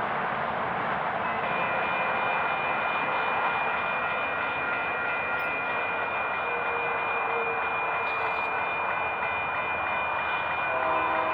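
Approaching Union Pacific freight train led by GE diesel-electric locomotives, a steady rumbling noise with a high steady whine from about a second in. The locomotive's horn begins to sound right at the end.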